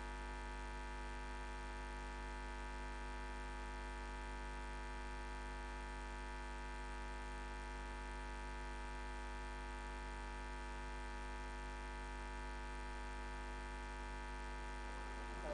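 Steady electrical mains hum: a low drone with a stack of many even overtones that does not change.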